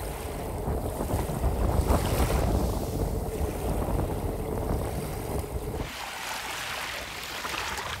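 Wind buffeting the microphone over the wash of Red Sea surf on the beach. About six seconds in, the low wind rumble drops away sharply, leaving a brighter hiss.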